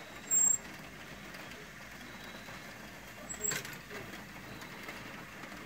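Rock-Ola 481 jukebox mechanism running: the record magazine and changer gearing make a steady mechanical whir. A short sharp noise comes just after the start and a knock about three and a half seconds in.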